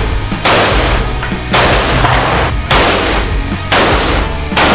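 Kalashnikov rifle fired in single shots, five shots about a second apart, each echoing in an indoor shooting range.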